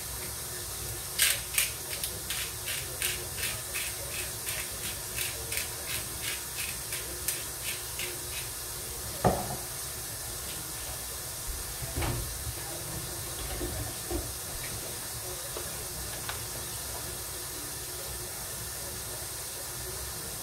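A seasoning shaker shaken over a cooking pot, rattling in quick even strokes, about three a second, for some seven seconds, followed by a single knock. A steady hiss runs underneath.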